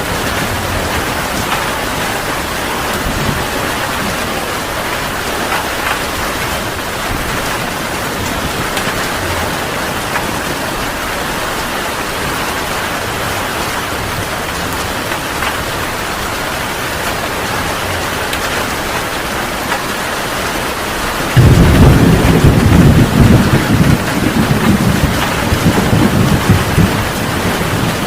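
Heavy rain falling steadily in an even hiss. About 21 seconds in, a loud clap of thunder breaks out and rolls on in a deep, uneven rumble.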